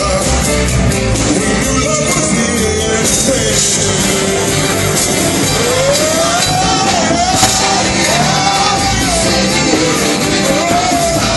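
Live rock band with a violin section playing amplified, with a lead vocal. From about six seconds in, a voice sings long, sliding phrases over the band.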